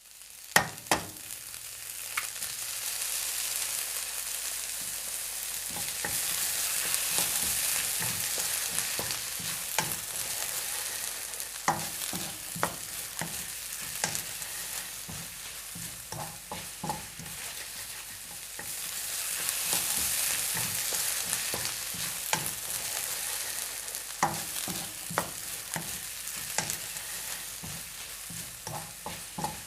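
An egg cracked open, then frying in hot oil: a sharp crack in the first second, then a steady sizzle with scattered pops and spits that swells twice.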